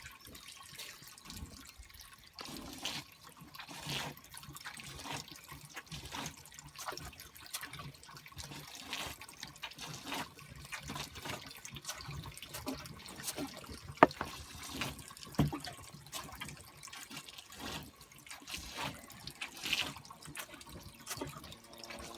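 Water trickling and dripping, with small irregular clicks and one sharp click about two-thirds of the way through.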